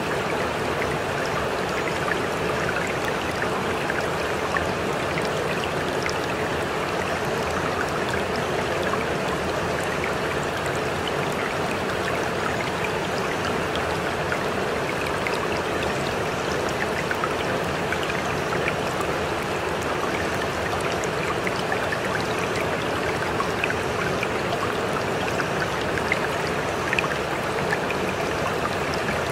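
Steady running-water ambience, stream-like, with scattered faint drip-like ticks and a faint steady tone underneath.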